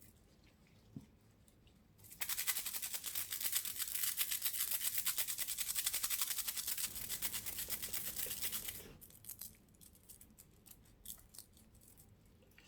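Loose 1/4-inch steel bearing balls from a Dura-Ace 7600 track hub rattling and clicking rapidly for about seven seconds as they are worked out of the hub, starting about two seconds in and stopping suddenly.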